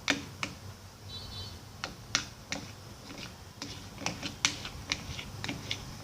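A spoon clicking and tapping against a bowl at irregular intervals while shampoo-and-salt slime is stirred.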